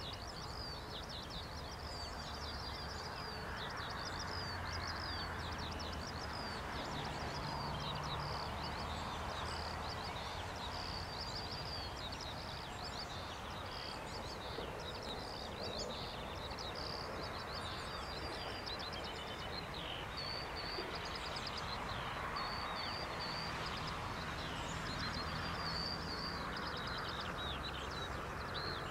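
Several birds chirping and singing continuously in short repeated calls over a steady outdoor background hiss, with a faint low hum that comes and goes.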